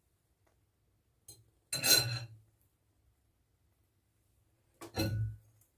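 Two short clattering knocks of kitchenware about three seconds apart, each with a brief metallic clink; the first is the louder.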